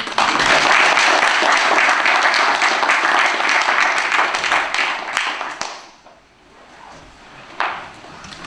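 Audience applauding, dense and loud for about five seconds, then dying away. A single knock comes near the end.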